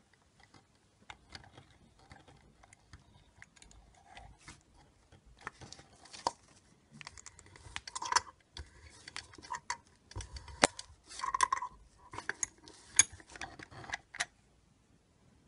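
Hands handling a small plastic flat-cable connector and a four-wire flat cable in the jaws of a clamping tool: irregular light plastic clicks and rustling, sparse at first and busier from about five seconds in, with several sharper clicks.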